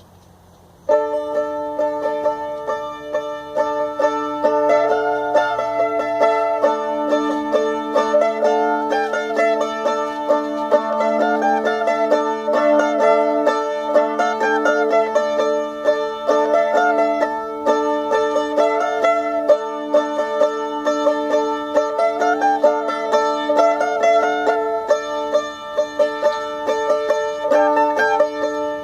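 Solo mandolin played with rapid picking, a moving melody over sustained ringing notes, starting about a second in.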